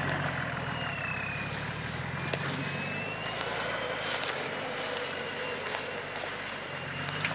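Nissan SUV's engine running at low revs as it crawls over rough ground, with a whine that slowly rises and falls in pitch. Scattered sharp cracks of twigs and brush snapping under the tyres.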